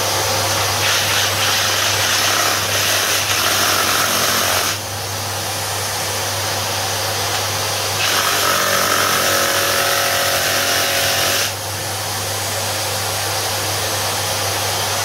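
Reciprocating saw cutting into a board with nails in it, in two spells of a few seconds each. The blade catches and gets stuck on a nail. A steady motor hum runs beneath.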